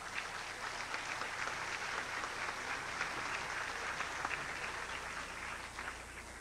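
Audience applauding, building up at the start and fading out near the end.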